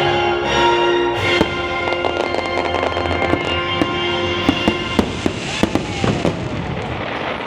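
Fireworks going off, a few sharp bangs at first and then a quick run of them about two thirds of the way through, over loud show music.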